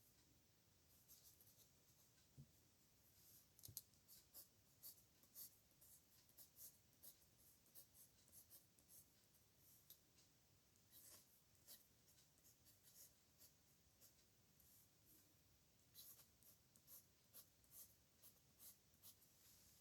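Pen writing on paper: faint, short scratching strokes at an irregular pace, with a brief lull a little past the middle.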